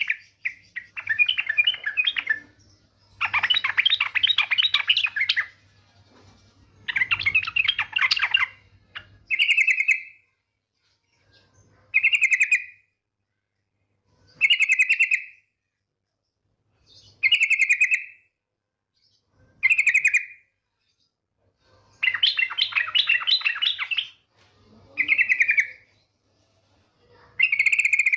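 Female yellow-vented bulbul (trucukan) calling: bursts of rapid chattering of about two seconds alternate with short, separate call notes, repeated with pauses between.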